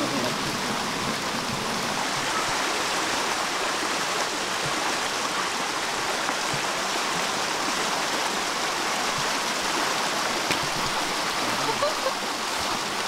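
Canyon stream water flowing steadily, an even rushing noise.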